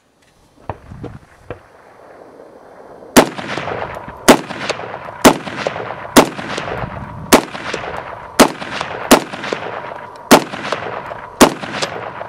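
Century Arms R1A1 Sporter, an FN FAL-pattern .308 semi-automatic rifle, fired nine times at about one shot a second, each shot followed by a rolling echo; it cycles every round without a stoppage. A few light clicks come about a second in, before the first shot.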